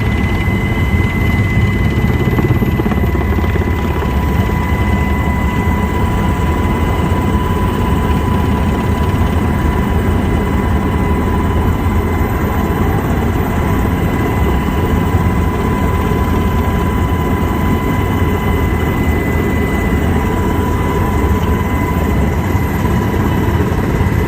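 Helicopter running steadily overhead: a dense low rotor and engine rumble with a steady high whine on top.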